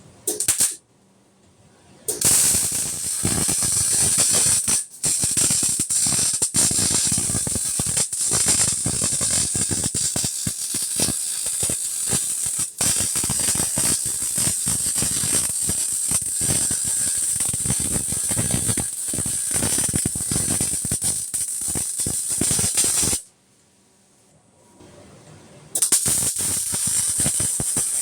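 Arc welder crackling and sputtering as a weld bead is laid: one long continuous bead of about twenty seconds, which stops abruptly, then a short second bead near the end.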